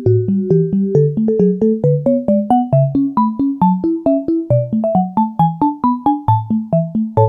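Background music: an electric piano or synth-keyboard tune of quick, evenly spaced notes over a moving bass line.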